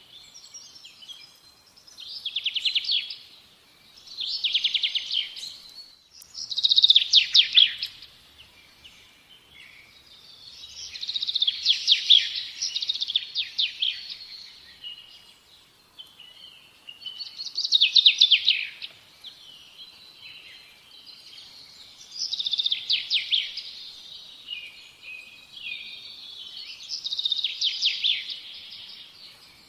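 A songbird singing, repeating a phrase of rapid trills every few seconds, with some clear whistled notes between phrases.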